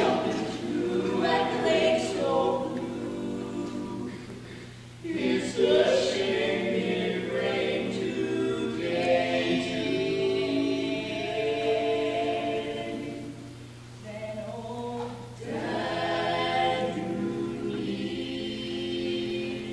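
Barbershop quartet singing a cappella in four-part close harmony: a man's bass with three boys' voices on baritone, lead and tenor. The singing comes in phrases, with short breaks about five and fourteen seconds in.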